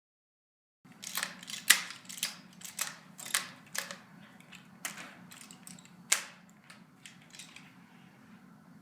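A run of sharp clicks and knocks at an irregular pace, a handful in quick succession, then fewer, with one loud knock about six seconds in, over a low steady hum.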